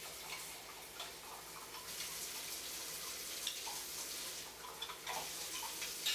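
Hot dye water simmering in a stainless steel pan of yarn on a gas burner: a steady sizzling hiss with small scattered crackles and pops.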